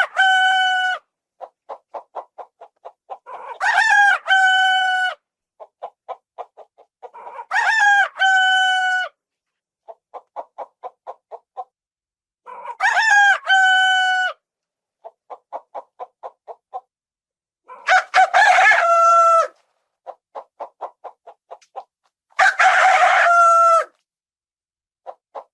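A rooster crowing cock-a-doodle-doo six times, about every four to five seconds, the last two crows rougher. A quick run of short clucks follows each crow.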